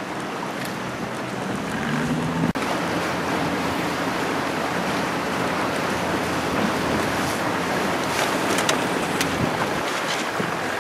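Wind buffeting the microphone over the rush and splash of choppy water around a small boat, a steady noise that breaks off for an instant about two and a half seconds in.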